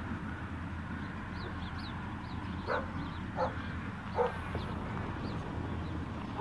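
A dog barking three times in the distance, short barks spaced well under a second apart, over a steady low rumble from the approaching diesel locomotives, with faint small-bird chirps.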